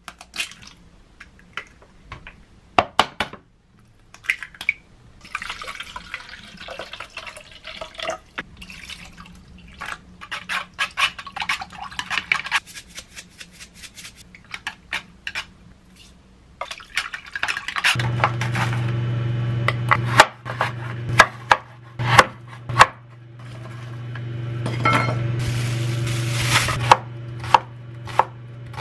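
Eggs tapped and cracked into a pot, then beaten with chopsticks clicking against the pot's sides. About two-thirds of the way through, a steady low hum starts under scattered knocks, and near the end a knife chops an onion on a wooden cutting board.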